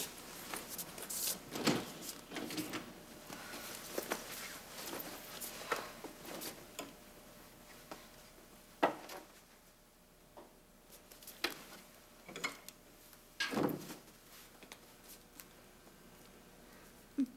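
Quiet household handling sounds: a coat rustling as it comes off and is hung in a closet, with scattered sharp clicks and knocks from the closet and its doors, the sharpest about nine seconds in.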